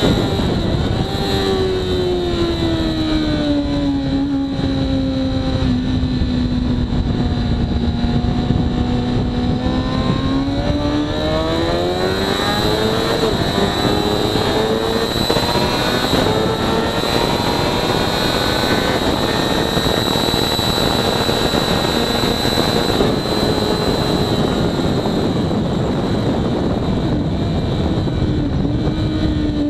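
2013 Kawasaki ZX-6R inline-four engine through a Hindle full exhaust, heard onboard at track speed. The revs fall over the first five seconds as the bike slows, hold low, climb again about twelve seconds in and stay high, then dip and rise near the end.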